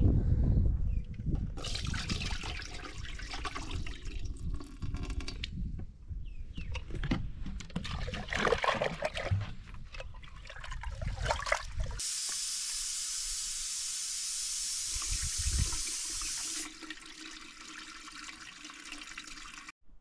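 Water splashing and being handled, with scattered clatter, then a steady stream of water for about four and a half seconds that stops abruptly.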